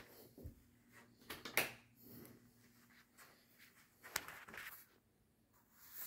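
Quiet room tone with a low steady hum, broken by a few brief soft knocks and rustles, the clearest about one and a half and four seconds in.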